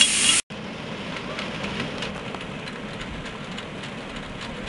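Loud steam hiss from a live-steam model locomotive, cut off abruptly about half a second in. It is followed by a quieter, steady outdoor noise with faint, irregular clicks.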